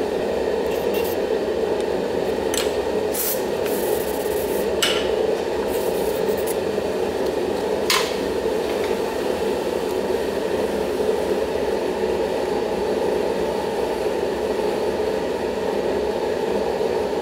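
A steady, even background noise with a few short scratchy strokes in the first half, from a felt-tip marker drawn across a bare aluminium plate.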